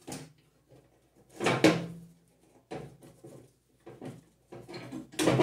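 Metal clinks and scrapes as a brake spring, bushing and brake arm of a John Deere 42-inch mower deck's spindle brake are worked into place by hand on the steel deck, with two louder clunks, about one and a half seconds in and just before the end.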